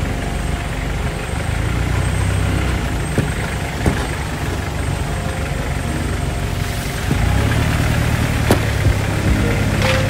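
Motor vehicle engine running steadily with a low rumble under a constant hiss. It gets louder about seven seconds in, and there are a couple of short knocks.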